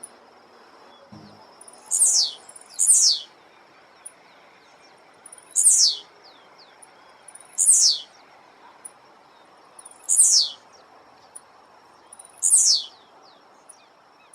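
A bird repeating a loud, high whistle that sweeps steeply downward, six times, every two seconds or so. Fainter short falling chirps and a thin steady high tone run under it.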